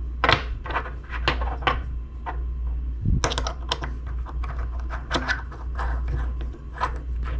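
Irregular clicks, taps and light scrapes of small metal parts as a pistol red dot sight's top-loading battery compartment is handled by fingers, over a steady low hum.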